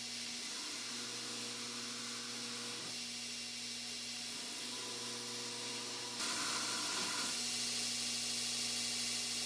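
Belt grinder running with steel pressed against its abrasive belt: a steady grinding hiss over the motor's hum, growing louder about six seconds in. The Damascus steel pieces are being ground clean before being stacked for forge welding.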